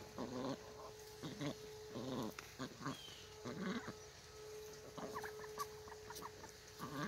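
Cayuga ducks quacking: short calls repeated about once a second.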